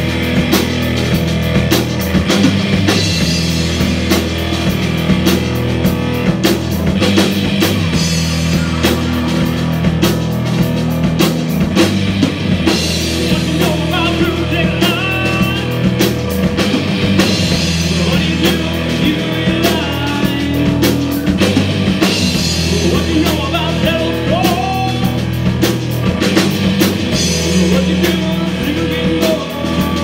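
Live rock band playing: electric guitars over a Yamaha drum kit keeping a steady beat.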